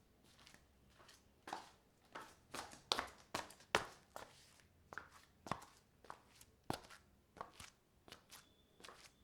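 Footsteps in slippers on a marble floor: a run of soft, sharp slaps and scuffs, one step after another, loudest around the middle.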